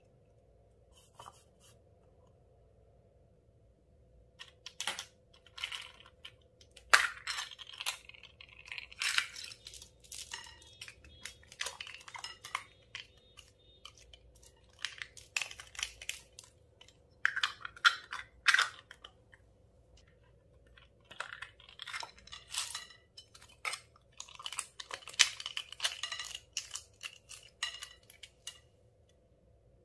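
Slime being squished and stretched by hand, making bursts of sticky crackling and popping clicks. It starts about four seconds in and comes in irregular clusters with short pauses.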